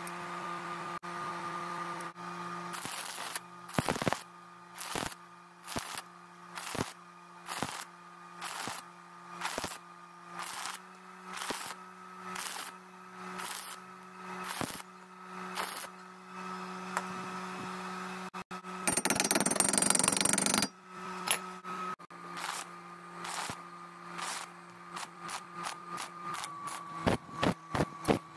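Stick (shielded metal arc) welding with a coated electrode: the arc is struck and broken again and again, giving short crackling bursts about once a second. Past the middle there is one continuous crackle of about two seconds, and near the end quicker short bursts. A steady low hum runs underneath.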